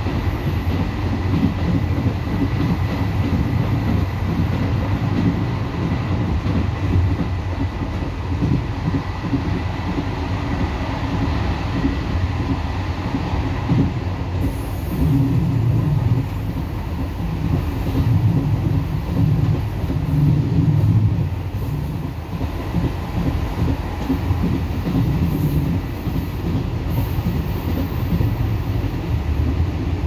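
Ride noise inside a moving ONCF passenger train carriage: a steady low rumble of wheels on rail and the running carriage. A faint thin whine sits over it for the first several seconds.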